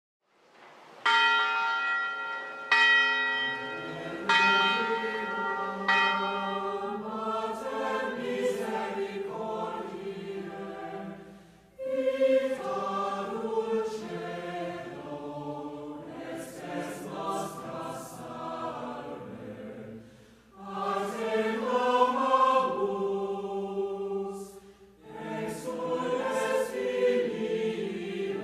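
A bell struck four times, each strike ringing on, then a choir singing slow sustained phrases that come in about three seconds in and pause briefly between phrases.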